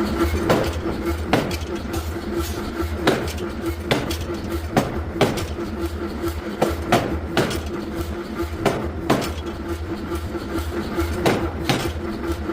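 Forging hammer blows striking metal at an irregular pace, about one or two a second, over a steady machine hum.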